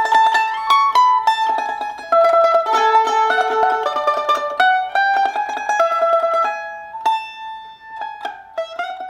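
Background music: a quickly picked mandolin-like string tune that thins to sparser notes in the last couple of seconds.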